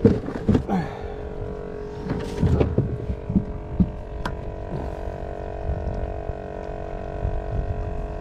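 A steady motor hum under a few knocks and thumps, the loudest right at the start and about two and a half seconds in, as a freshly caught schoolmaster snapper is handled and measured on a kayak.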